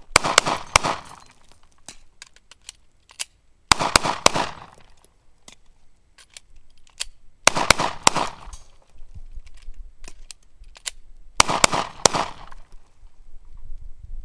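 Glock 26 9mm subcompact pistol fired in four quick strings of three shots, each string under a second, about four seconds apart. Faint clicks in the gaps are the magazine changes of a reload drill.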